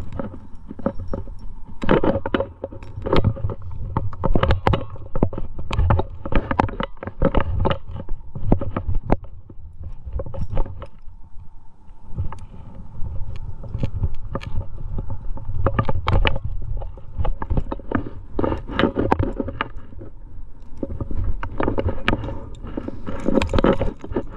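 Trad climbing gear clinking and rattling on a harness as the climber moves, with irregular knocks and scrapes of hands and shoes against rock and a low rumble of handling noise on the camera.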